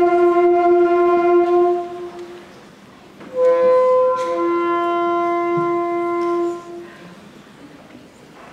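Sixth-grade beginner concert band of woodwinds and brass playing long held chords: one chord sustained until about two seconds in, then after a short pause a second chord held about three seconds before it cuts off.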